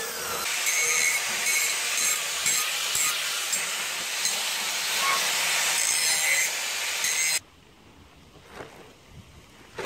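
Harsh, continuous scraping and rubbing on a freshly welded steel workpiece, as when the slag and spatter are scrubbed off with a wire brush. It cuts off abruptly about seven seconds in, leaving a faint background with a single light knock near the end.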